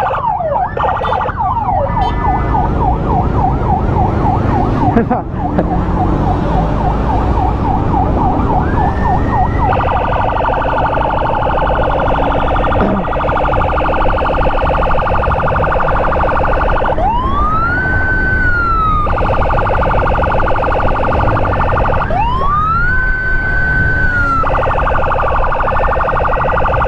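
Electronic emergency sirens of an ambulance and its escort: a fast yelp sweeping about four times a second, switching about ten seconds in to a rapid steady warble, with two rising wails in the second half that climb, hold and cut off. Motorcycle engine and wind rumble run underneath.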